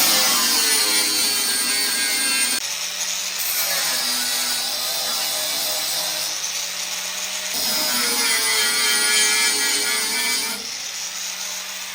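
Handheld power sanding tool working over welded sheet steel on a car's wheel arch to smooth the welds: a steady motor whine whose pitch sags and recovers as the tool is pressed into the metal, changing in tone a few times as it moves.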